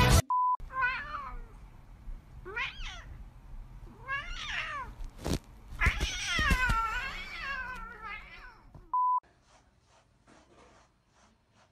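Domestic cat meowing, four or five drawn-out meows, the longest about six seconds in. A short electronic beep sounds near the start and another about nine seconds in.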